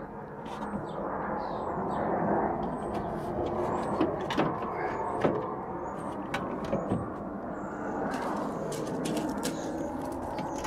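VW T4 plastic radiator grille being worked into place on the van's front panel: scattered clicks and knocks of plastic against plastic over a steady background noise.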